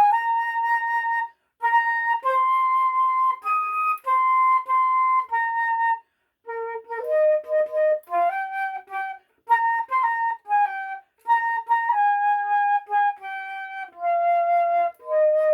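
Solo flute playing a slow melody in phrases with short breath pauses between them, closing on a long held note near the end.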